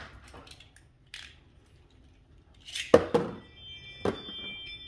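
Beyblade spinning tops clicking and clattering as they are handled. A sharp knock comes about three seconds in and another about four seconds in.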